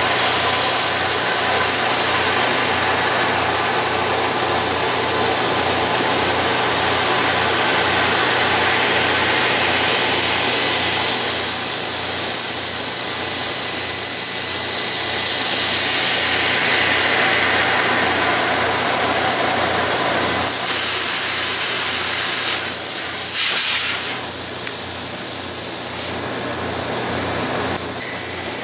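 Kern 400-watt CO2 laser cutter cutting brass sheet: a loud, steady hiss of assist gas jetting from the cutting head, over a low machine hum. In the last several seconds the hiss breaks off briefly a few times and gets quieter.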